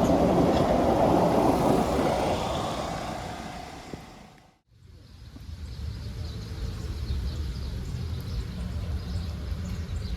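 Narrow-gauge steam train running, loud at first and fading away over about four seconds. After a brief drop to silence, a quieter steady low rumble with faint clicks follows.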